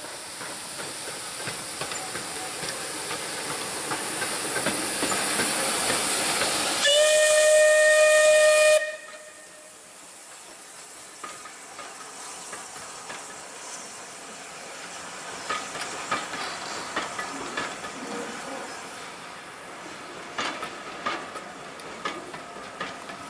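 Steam locomotive approaching at the head of a train, its exhaust and steam hiss growing louder, then sounding its whistle: one steady note held for about two seconds, about seven seconds in, that cuts off suddenly. After it the coaches roll past with quieter running noise and scattered clicks of wheels over the rail joints.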